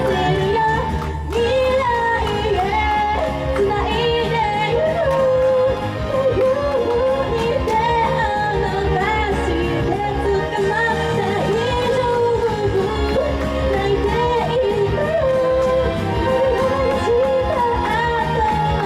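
Female idol singing live into a handheld microphone over J-pop music with a steady beat and bass.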